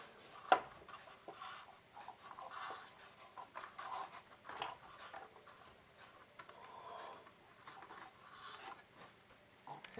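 Small handling sounds of rubber-band drive belts being stretched onto the pulleys and propeller shafts of a balsa-wood, rubber-powered model plane: faint scattered clicks, taps and rustles, with one sharp click about half a second in.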